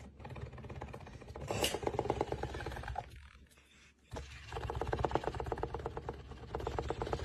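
Kitten purring: a fast, even, buzzing rhythm in two long stretches, with a short break about three seconds in.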